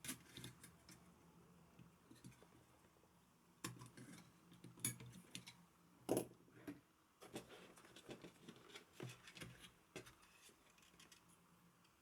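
Faint, scattered clicks and light taps of a magnetic-bit screwdriver and small screws being worked out of a graphics card's fans and heatsink, with a few sharper clicks around the middle.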